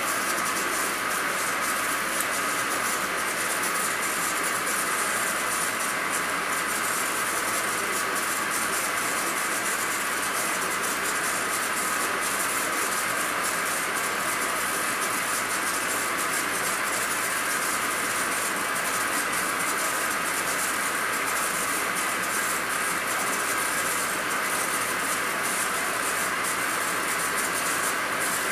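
Engine lathe running steadily while a high-speed steel tool turns an eccentric diameter on a weld-repaired vibrator shaft: an even mechanical noise with a hiss that does not change.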